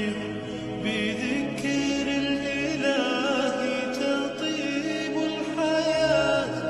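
Background music: a chanted vocal melody with several voices in harmony over a held low note.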